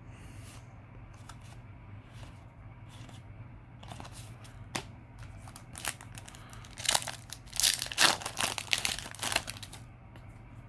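Foil wrapper of a Yu-Gi-Oh! Legendary Duelists booster pack crinkling and being torn open, in scattered crackles that grow dense and loudest about seven to nine and a half seconds in.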